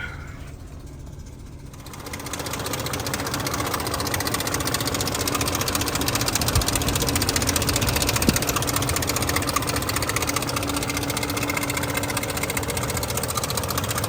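BMW E38's 4.4-litre V8 idling with the rattle of failing timing chain guides, which the owner already hears and is having replaced. It gets louder about two seconds in, and a couple of sharp clacks come near the middle.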